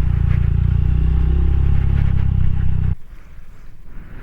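Rusi Classic 250's single-cylinder four-stroke LX166FMM engine running with a rapid, even exhaust beat, then cutting off abruptly about three seconds in, leaving only a faint low rumble.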